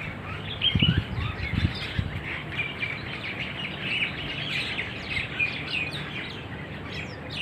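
A flock of starlings chattering and chirping continuously, many overlapping calls at once. A few low bumps on the microphone come about a second in.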